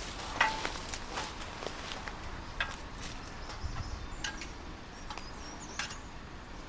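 Scattered light clicks and knocks, the sharpest about half a second in, with a faint high chirp about five seconds in.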